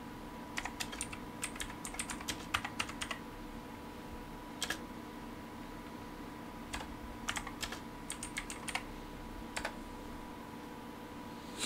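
Typing on a computer keyboard: a quick run of keystrokes in the first few seconds, then scattered presses and a second run in the middle, over a faint steady hum.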